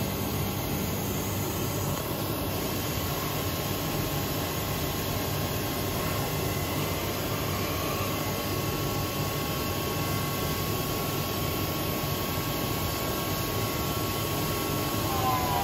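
Studer S40 universal cylindrical grinder running: an even machine noise with a low hum and a steady high whine. Near the end the whine starts to fall in pitch, as if a spindle is slowing.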